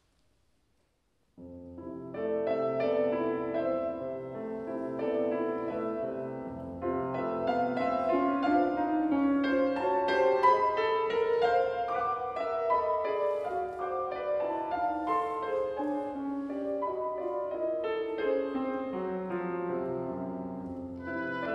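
About a second and a half of near silence, then a grand piano and an oboe begin a slow, singing lullaby-like movement of classical chamber music.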